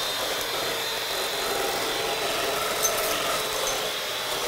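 Electric hand mixer running steadily, its beaters churning through thick squash muffin batter in a bowl, with one brief click about three seconds in.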